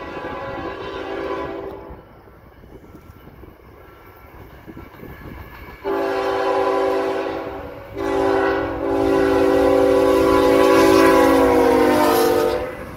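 Horn of a CSX diesel locomotive hauling a fast intermodal train. One blast fades out about two seconds in, then after a quieter lull comes a short blast and a long one. The long blast's chord drops in pitch near the end as the locomotive passes close by.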